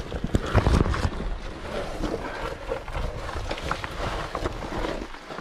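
A caver's oversuit and kit rustling, scraping and knocking irregularly against rock while crawling through a tight squeeze.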